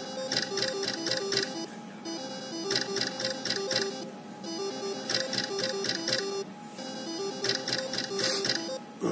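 Novomatic Book of Ra video slot machine playing its reel-spin sound: a rapid electronic ticking with a short tune as the reels run and stop. This happens four times in a row, one spin about every two seconds.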